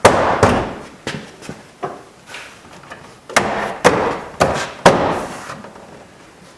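GMC Sonoma interior door panel being pushed and knocked against the door to seat its retaining pins: about ten irregular sharp knocks and thumps, each with a short rattling tail.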